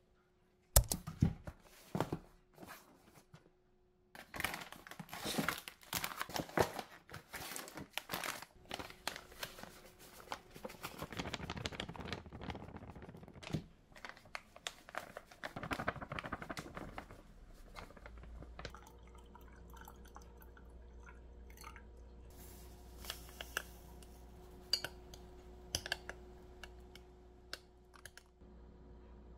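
Plastic packets of hotteok mix crinkling and tearing open, and the dry mix pouring and rustling into a glass bowl. Later there are a few light taps of a small spoon stirring in a glass measuring cup, over a low steady hum.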